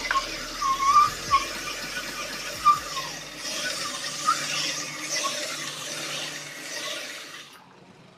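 Cylinder honing machine working a motorcycle cylinder bore: the honing stones squeal against the bore in short, wavering bursts over a steady hiss of coolant. A low machine hum stops about halfway, and the noise dies away shortly before the end.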